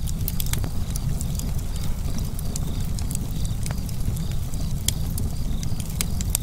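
Wood fire crackling: sharp, irregular pops and snaps over a steady low rush of burning logs.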